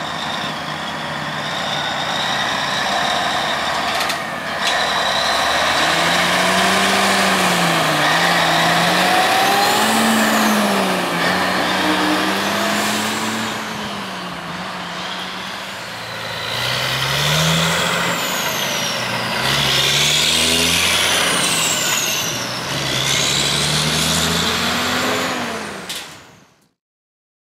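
Diesel semi-truck pulling away and accelerating up through the gears. The engine note climbs and drops back with each of several upshifts, with a short sharp sound about four seconds in, and the sound cuts off near the end.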